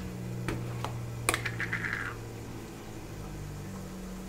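A few sharp clicks and a short scrape of a steel spoon against a spice tin and a steel kadhai as garam masala is spooned into the pan, over a steady low hum.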